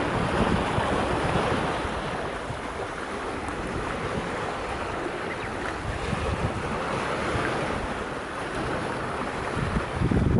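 Sea waves washing against a breakwater, with wind buffeting the microphone in gusts.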